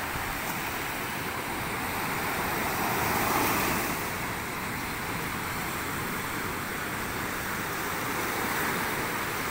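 Surf breaking and washing up a sandy beach: a steady rushing of waves that swells a little about three seconds in.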